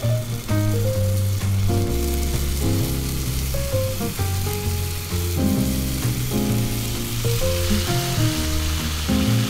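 Food sizzling in a frying pan, a steady high hiss that grows fuller partway through, under background music with a moving bass line and melody.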